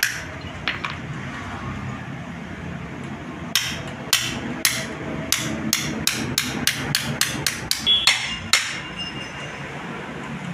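Hand hammer striking a steel universal-joint yoke of a propeller shaft on a steel anvil block, metal on metal with a short ring, while the joint's cross and bearing cups are being knocked in or out. Two blows at the start, then after a pause a run of about fifteen blows that quickens to about four a second and stops a couple of seconds before the end.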